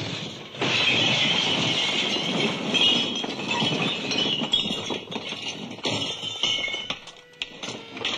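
Glass and crockery clattering and smashing in a long, dense crash. It thins out into separate clinks near the end.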